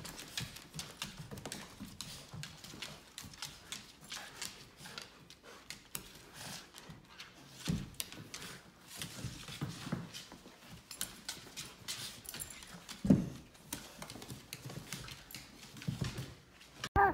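Dog claws clicking and scrabbling irregularly on a hardwood floor as a golden retriever drags a puppy hanging onto its toy, with a louder low thud about thirteen seconds in.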